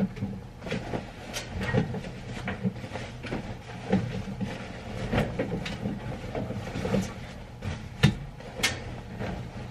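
Irregular clicks, knocks and light clatter of household items being handled by hand, over a steady low hum.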